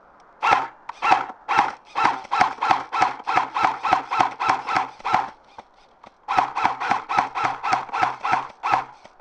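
Airsoft rifle firing a rapid string of shots, about five a second, each with the same short mechanical whine. There is a pause of about a second near the middle, then it fires again.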